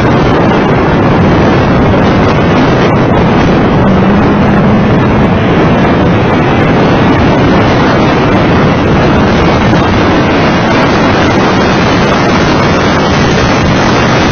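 Heavy wind buffeting on the microphone over the engine and road noise of a Mitsubishi FTO GPX driven at track speed, loud and steady throughout.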